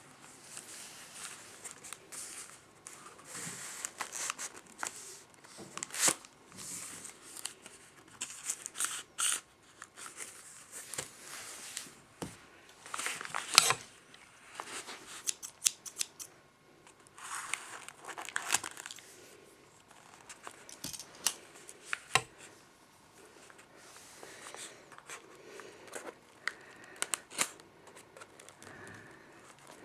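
Paper being handled and cut with scissors: irregular snips, rustling and crinkling, with scattered sharp clicks.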